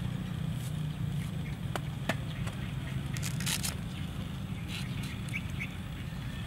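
Knife peeling green bananas: scattered faint clicks and scrapes of the blade cutting through the skin, with a brief louder scrape about three and a half seconds in, over a steady low hum.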